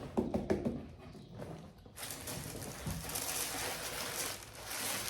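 Rustling and crinkling of gift packaging being handled and opened: a steady, hissy crackle over the last three seconds, after a brief low murmur of voice at the start.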